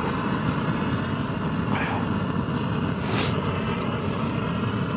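Camping stove burner running on a high flame, a steady rushing noise, with a brief hiss about three seconds in.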